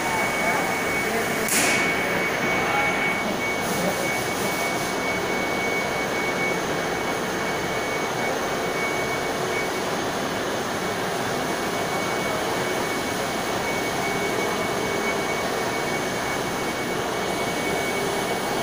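High-speed 1+6 skip stranding machine (630 mm bobbins) running: a steady whir with a constant high-pitched whine.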